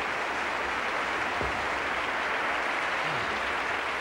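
Large concert-hall audience applauding steadily, welcoming a performer onto the stage.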